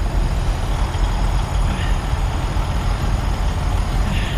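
A semi-truck's diesel engine running low and steady as the tractor-trailer rolls in slowly.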